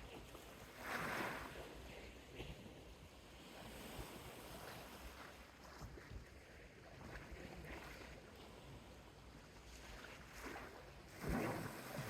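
Soft sea waves lapping at the shore, a faint wash of water with two louder splashes, about a second in and again near the end.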